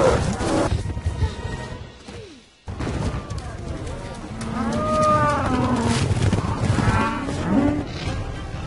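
A herd of water buffalo bellowing over a low rumble, with several long, bending calls in the second half. The sound drops out briefly about two and a half seconds in.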